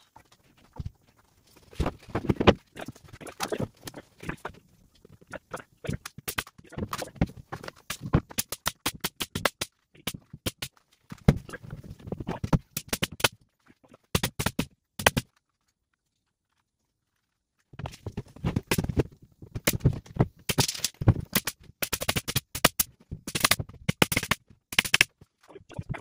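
Pneumatic framing nailer firing repeatedly, driving nails through OSB sheathing into a 2x4 wall frame: sharp shots in quick runs, with a short dead stop just past the middle.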